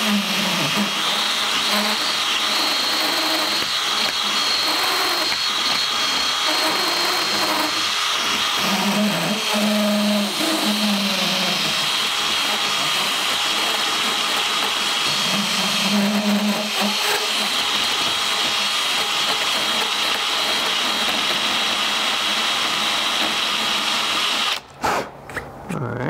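Cordless drill spinning a carbide double-cut burr, grinding wood out of the strike plate opening in a door jamb so the deadbolt can seat fully. A steady high motor whine runs under the grinding, and the drill stops about a second and a half before the end.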